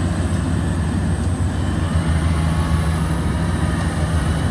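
Yanmar combine harvester's diesel engine running steadily with a low drone.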